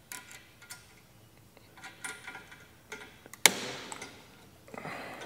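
Scattered light clicks of hands working a one-handed bar clamp on a steel canopy bracket, with one sharp clack about three and a half seconds in.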